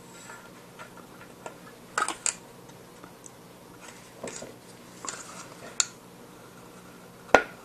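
Scattered small clicks and taps as LEDs are pressed and snapped into the front panel of a test box, with the loudest, sharpest snap near the end.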